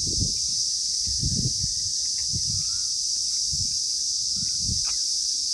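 Steady high-pitched drone of insects, the 'guyyi' ringing that fills the ears, over the low thuds of footsteps walking.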